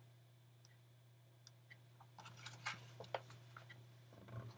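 Near silence with faint rustling and light ticks as a large picture book's pages are handled and turned, the loudest rustle near the end, over a low steady hum.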